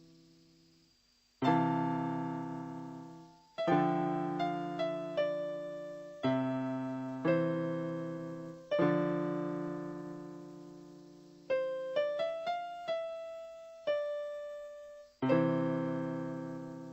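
Background piano music: slow chords, each left to ring and fade, with short runs of quicker single notes between them.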